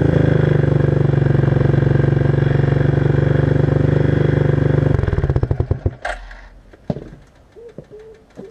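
1994 Suzuki King Quad 300's single-cylinder four-stroke engine idling steadily through its stock muffler with the baffles removed. It is then shut off about five seconds in, its exhaust pulses slowing to a stop.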